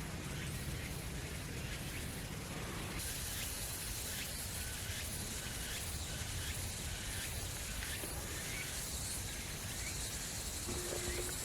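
Forest ambience: a steady bed of outdoor noise with a low rumble, and faint short chirps repeating roughly every half second through most of it.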